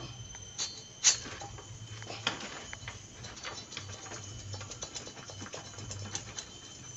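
Scattered light metallic clicks and knocks as the cylinder block of a Honda Supra Fit engine is rocked and slid off its studs and piston, with a couple of sharper knocks about one and two seconds in.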